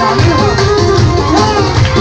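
Loud music with a steady, pulsing beat and a wavering melody line over held tones.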